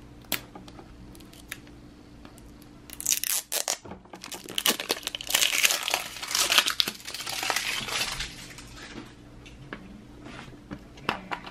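Plastic wrapping being torn and crinkled off a pink L.O.L. Surprise toy capsule by hand, with clicks of the hard plastic shell being handled. A short tearing burst comes about three seconds in, then a longer stretch of crinkling.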